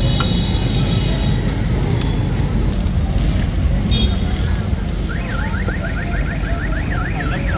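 Steady, loud low rumble of street noise around a wood-fired tawa stall. About five seconds in, an electronic siren starts warbling quickly, its pitch sweeping up and down several times a second.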